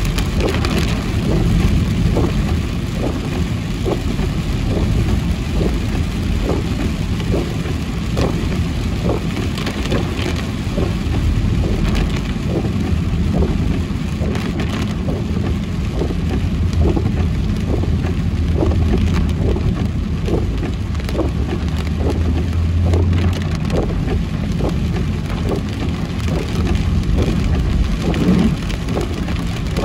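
Heavy rain pattering on a moving car, with many irregular drop hits over a steady low engine and tyre rumble on the wet road.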